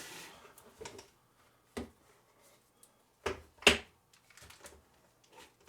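DJI Phantom 3 Professional and Phantom 4 remote controllers being handled: a few short knocks and clatters with quiet gaps between, the loudest about three and a half seconds in.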